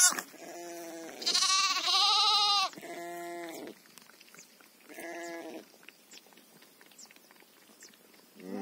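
A ewe and her newborn lamb bleating. Two loud, high-pitched bleats come back to back between about one and three seconds in, and three shorter, lower bleats are spread through the first six seconds.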